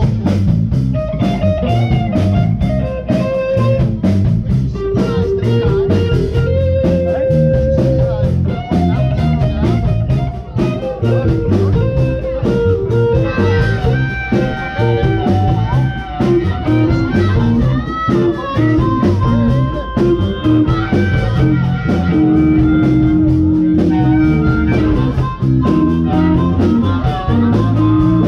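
Live blues band playing an instrumental passage: electric guitar and harmonica lines over bass guitar and a drum kit, with held and bent notes.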